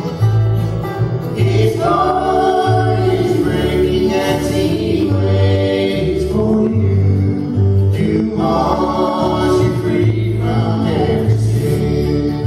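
Bluegrass gospel band singing in harmony, a male lead with a woman's and a man's harmony voices, over acoustic guitar, mandolin, banjo and upright bass.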